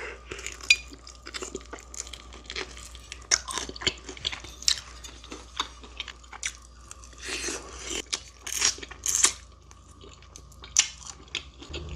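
Close-miked biting and chewing of crispy fried chicken: a run of sharp crackling crunches, thickest in two spells, with quieter chewing between.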